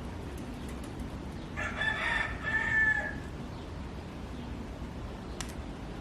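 A rooster crowing once, a single call of about a second and a half that ends on a drawn-out note.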